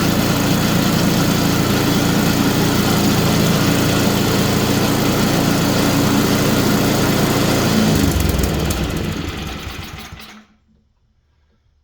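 MTD snowblower's small four-stroke engine running steadily on its freshly cleaned carburetor, which still needs adjusting. About eight seconds in it winds down, and it stops about ten seconds in.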